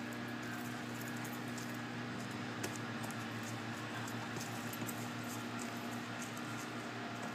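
Faint light clicking and rustling, like movement over dry fallen leaves and paving, over a steady low hum of a few level tones.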